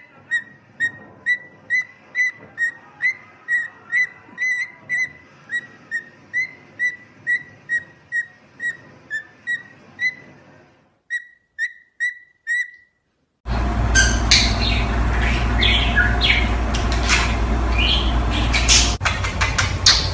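A parrot whistling one short, high note over and over, about two a second, in an even rhythm, stopping near the middle after a few last whistles. After a brief break comes a louder, noisier stretch of bird squawks and calls over a steady low hum.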